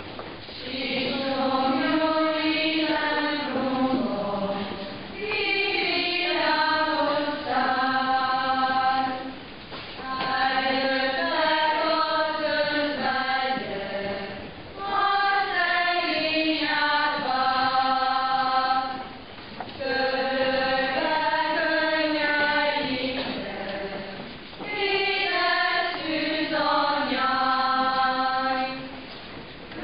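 Many voices singing a church hymn together in unison. It comes in phrases of about four seconds, each followed by a brief pause for breath.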